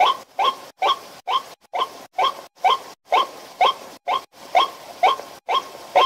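White-breasted waterhen calling: one short call repeated steadily, about twice a second.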